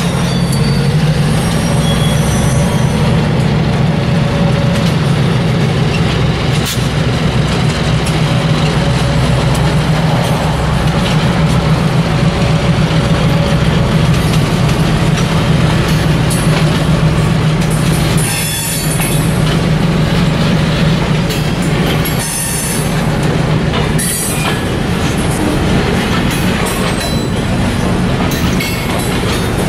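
Diesel-hauled freight train moving on the rails: a steady low locomotive engine drone over the rumble of rolling cars, with a thin wheel squeal in the first few seconds.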